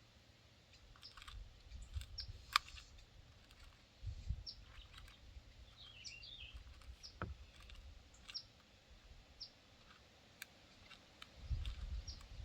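Small birds chirping: short high calls scattered throughout, with a brief twittering run about six seconds in. There are faint sharp clicks and low rumbles underneath.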